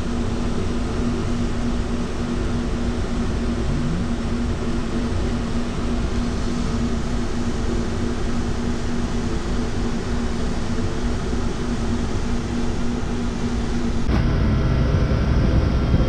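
Steady hum of shipboard machinery, with a few steady low tones. About two seconds from the end it switches abruptly to a louder, deeper rumble.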